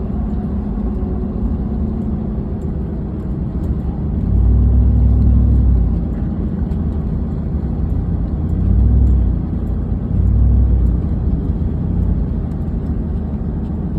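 Vehicle engine and road rumble while driving, with a steady low drone that swells louder three times: for about two seconds from four seconds in, and again briefly around nine and ten seconds in.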